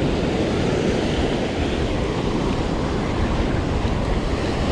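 Surf breaking steadily on the beach, with wind rumbling on the microphone.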